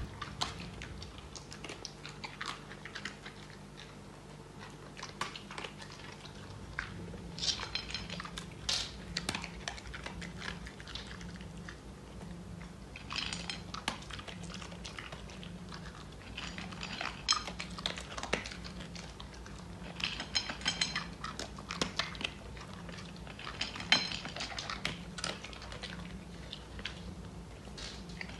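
A husky eating dry dog kibble from a plate: spells of irregular crunching, with small clinks of kibble and teeth on the plate.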